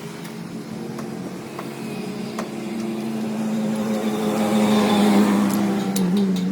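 A motor running with a steady hum that swells louder, then dips slightly in pitch; rapid, regular ticking starts near the end.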